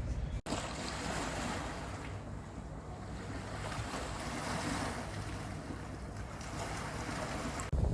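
Sea water washing with wind on the microphone: a steady rushing noise with no speech.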